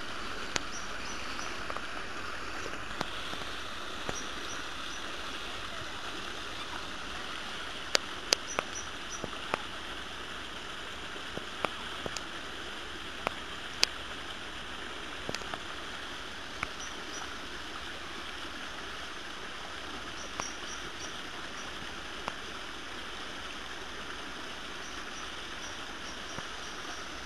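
Steady rush of flowing water from a small park stream or water channel, with sharp clicks now and then, the loudest about eight and fourteen seconds in.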